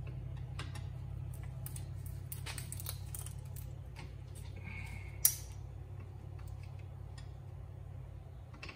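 Light metal clinks and clicks of hand tools and brake hardware being handled and fitted at a car's rear wheel hub, with one sharp, louder metallic click about five seconds in. A steady low hum runs underneath.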